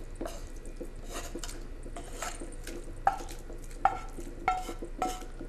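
Light scrapes and clinks of a cooking utensil and pan against a glass saucepan as crab meat is scraped into the broth. Several short ringing clinks come in the second half.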